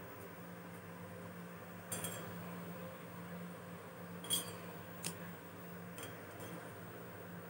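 Paintbrush clinking against a stainless steel water cup as it is rinsed: about four sharp clinks, the loudest a little past halfway, over a steady low hum.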